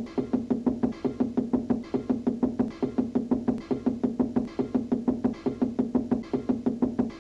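Rapid knuckle-knocking on a wall, a cartoon sound effect at about six knocks a second, mixed with cartoon music.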